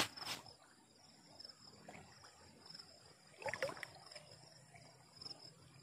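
Insects trilling steadily in a high, pulsing tone over faint water sloshing, with a sharp click just after the start and a brief louder stir of water about three and a half seconds in.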